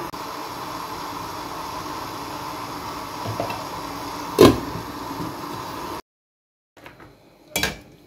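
Stainless steel pot of fern fronds boiling on a gas stove, giving a steady hiss, with a wooden spatula knocking once sharply against the pot a little over halfway through. The hiss cuts off abruptly, and another short knock follows near the end.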